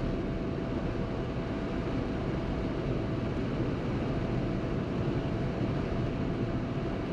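Steady road and engine noise of a Maruti Suzuki Ciaz sedan cruising, heard inside the car, with a faint steady tone above the noise.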